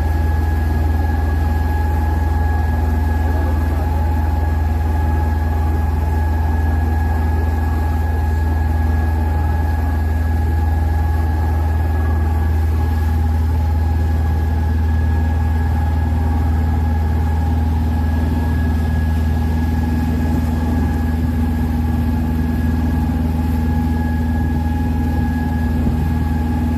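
Open tour boat's engine running steadily under way, a deep drone with a steady whine above it, heard from on board.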